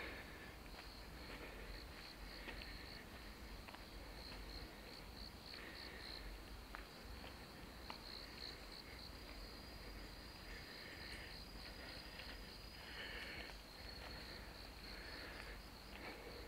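Insects chirping in a steady, pulsing high trill. A shorter, lower call comes in briefly every couple of seconds.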